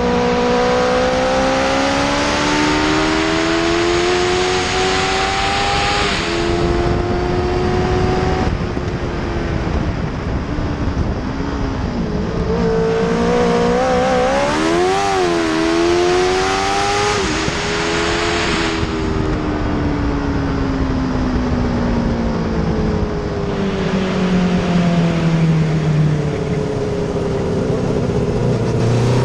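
Racing sidecar's Honda CBR600 inline-four engine, heard onboard at full throttle: the note climbs, drops in steps with the gear changes, and falls in a long glide before climbing again near the end. Wind rushes over the microphone throughout.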